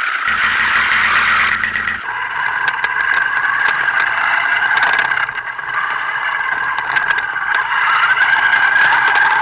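Thunder Tiger RC buggy running flat out on dirt: its motor gives a high, steady whine that wavers in pitch, with clicks and rattles from the chassis and tyres on the loose surface. The sound changes abruptly about two seconds in.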